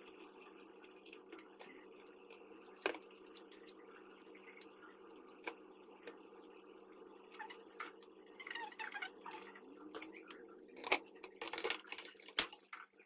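Soft wet squelches and drips as boiled yufka pastry sheets are lifted from a colander and laid into a tray, with scattered small clicks over a steady low hum. Sharper knocks of kitchen utensils come near the end.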